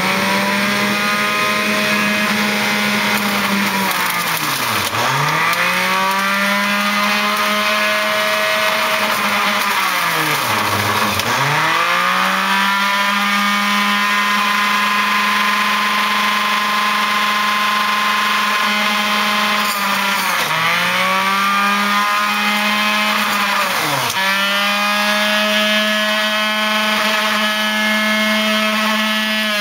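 Hamilton Beach Big Mouth centrifugal juice extractor running with a loud motor whine. About four times its pitch drops sharply and climbs back as carrots, celery and beet are pushed down the feed chute and load the motor.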